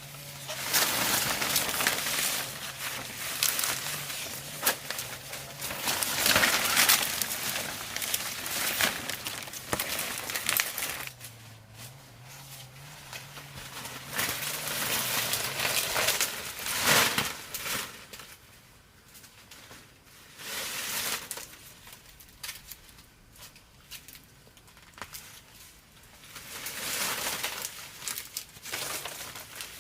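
Irregular rustling and crunching handling noise, swelling and fading in uneven bursts, with a faint low hum that comes and goes.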